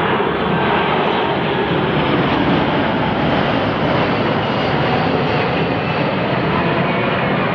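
Steady, loud rushing noise with no change in level and no distinct strokes or knocks.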